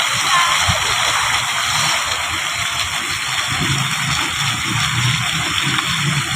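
Water fountain jets splashing down: a steady rush of falling water.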